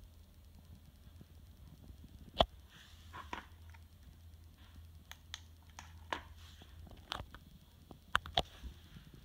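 Scattered clicks and light taps from handling a small wireless turn-signal remote, with one louder knock about two and a half seconds in and two quick clicks near the end, over a low steady hum.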